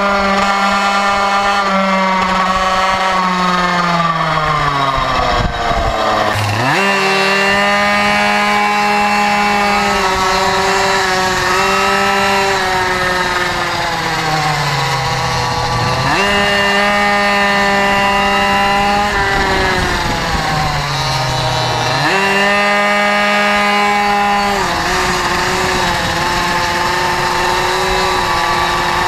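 Motorcycle engine heard from a camera mounted on the bike, its revs sliding down three times over a couple of seconds and each time jumping sharply back up, then holding steady between, as the bike slows for and drives out of corners.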